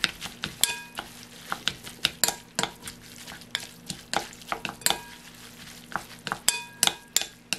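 Wooden spoon stirring and tossing boiled glass noodles (dangmyeon) in a glass bowl to coat them with soy sauce, salt and sesame oil: irregular taps and clicks of wood against glass. A few knocks near the start and near the end leave the bowl ringing briefly.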